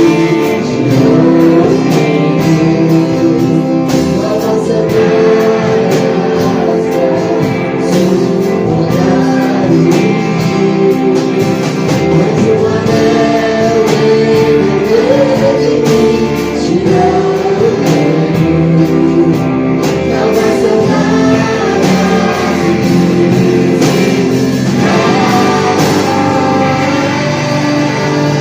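Christian worship song played by a band, with singing over guitar and drums.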